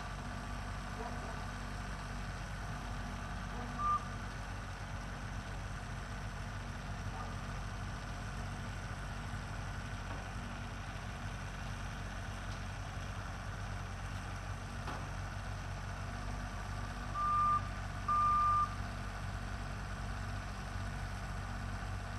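Heavy equipment engine running steadily, with a backup alarm beeping: one short beep about four seconds in, then two longer beeps near the end.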